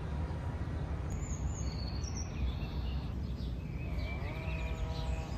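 Outdoor ambience: a steady low rumble with small birds chirping now and then. About four seconds in, a held pitched tone with several overtones joins.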